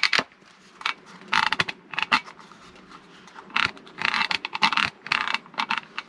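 Hard plastic scraping and clattering as a moulded plastic diesel-heater air diverter is handled and turned over, in a series of short scrapes.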